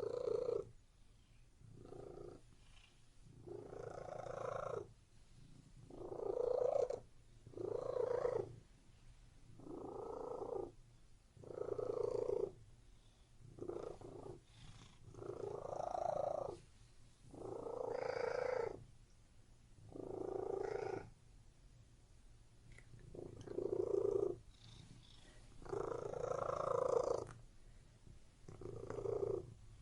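Domestic cat purring steadily, swelling louder about every two seconds with each breath in and out.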